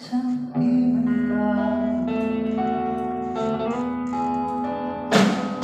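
Live band music: electric guitar and keyboard under a long-held sung word, with a loud percussion hit about five seconds in.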